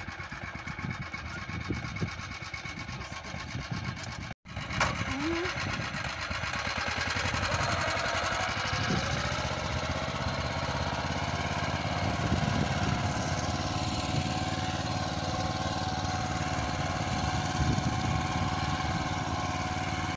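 Motor Sich MB-6 walk-behind tractor's engine running steadily under load, pulling a reversible plough through garden soil. The sound cuts out for an instant about four seconds in.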